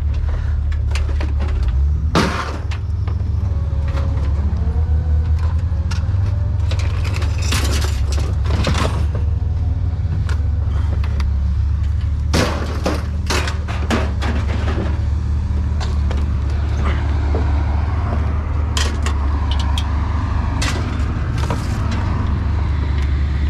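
Scrap metal being thrown onto a pile: scattered clanks and crashes, the loudest about two seconds in, over a steady low engine drone.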